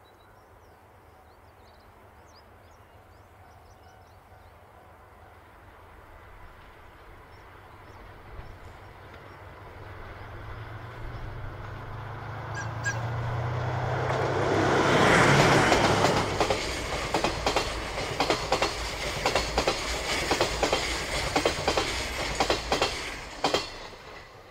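JR Freight DF200 diesel-electric locomotive hauling a container freight train past. Its engine drone builds from faint and is loudest as the locomotive goes by about halfway through. Then the wagons' wheels click steadily over the rail joints, fading near the end.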